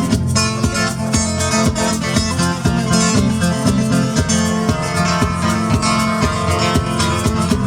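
Music: a strummed guitar playing steadily in a country style, without singing.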